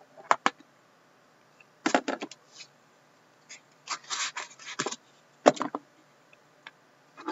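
Trading-card hobby box handled and opened by hand: sharp taps and knocks, a couple about half a second in and a cluster about two seconds in, then a rubbing scrape as the box is worked open around four seconds in, and one more knock about five and a half seconds in.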